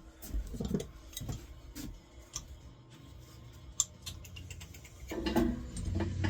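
Light metallic clicks and clinks of pipe fittings being handled and fitted together. A steady low hum starts about five seconds in.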